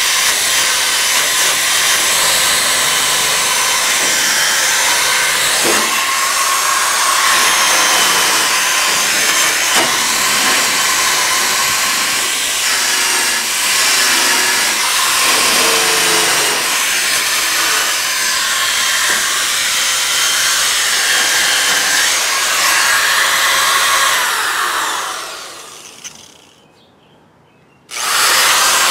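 Corded electric drill running steadily at high speed on a pickup's bed rail. About 25 seconds in it winds down and stops, then starts again abruptly just before the end.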